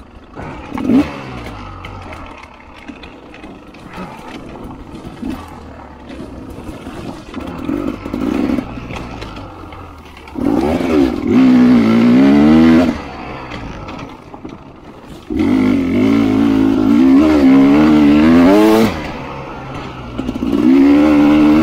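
A 300RR two-stroke dirt bike's engine being ridden, its revs rising and falling under throttle, with three long loud surges in the second half and quieter running and clatter between.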